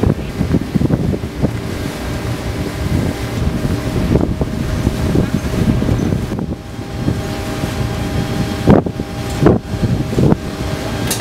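Warship's engines and machinery running with a steady low rumble and hum, with wind buffeting the microphone. A few sharp knocks come in the last few seconds.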